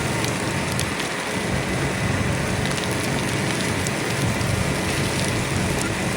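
Steady hiss with scattered sharp crackles, typical of a fire burning while water is sprayed onto it, over a low rumble of engines.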